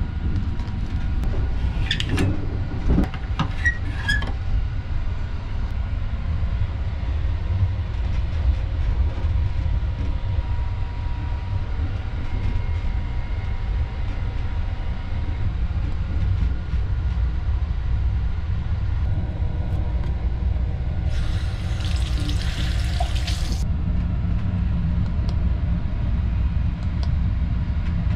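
Steady low rumble of a JR 285-series Sunrise Seto sleeper train running, heard from inside a private compartment, with a few light clicks in the first few seconds. About two-thirds of the way through, water runs from the compartment's push-button washbasin tap for two to three seconds.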